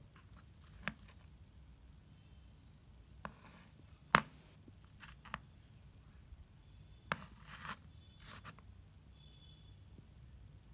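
Thick slate pencils being handled: scattered sharp clicks and clacks as the stone sticks knock against each other and the hard surface, with one much louder clack about four seconds in and a few brief scrapes later on.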